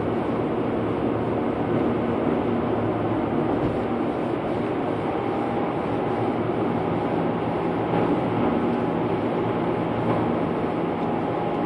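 Steady engine and tyre noise inside a car's cabin while driving at road speed. A faint steady high tone joins in about halfway through.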